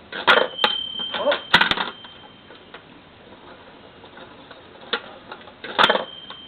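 Plastic balls clattering through a Kurukuru Chime toy and striking its chime: a cluster of sharp clicks and knocks, with a high bell tone that rings on for a second or two, twice, once just after the start and again near the end.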